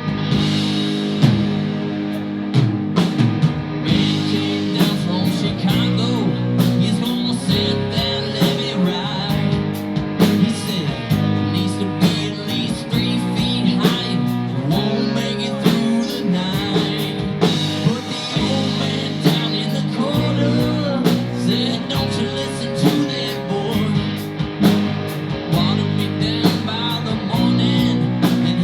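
Live rock band playing an instrumental break: guitar lines over bass and a drum kit.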